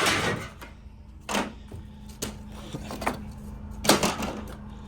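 Scrap metal being handled and loaded: a few separate knocks and clanks, about one a second, over a steady low hum.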